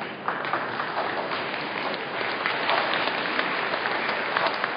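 Audience applauding, many hands clapping at once; the clapping swells about a quarter second in and then holds steady.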